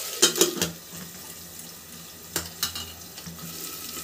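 Metal clanks of a pressure cooker lid being handled and taken off: a quick cluster in the first second and two more about two and a half seconds in, over a soft hiss of potatoes frying in oil inside the cooker.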